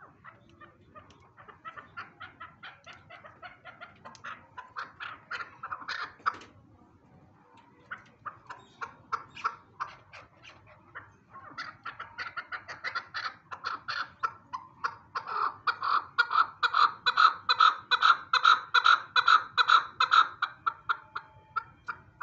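Male chukar partridge calling: a long run of rapid, repeated clucking notes that builds and grows louder. It breaks off briefly about six seconds in, then picks up again and is loudest and fastest in the last third.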